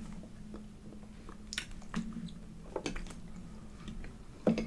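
A person chewing food close to the microphone, with about four short wet mouth clicks and smacks spread through.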